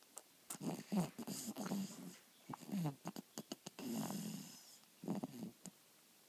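Sleep snoring in irregular runs of wavering, pitched moans and whines, with short clicking snorts in between.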